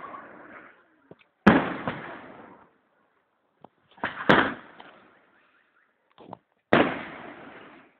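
Aerial firework shells bursting: three sharp bangs about two and a half seconds apart, each dying away over about a second, with a few fainter pops between.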